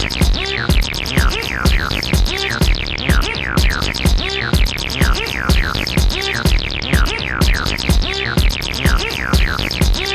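Electronic music: a steady drum-machine beat under repeated quick, falling synth sweeps.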